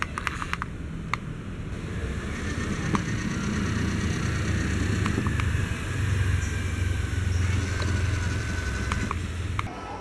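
Electric drive motor of a toy RC car under a cardboard road-roller body, run from the remote: a steady low whirr with a faint high whine that builds over the first few seconds and cuts off just before the end. A few sharp clicks come in the first second.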